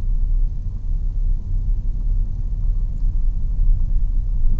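Steady low rumble inside a moving car's cabin: the engine running and tyres rolling as the car turns at low speed.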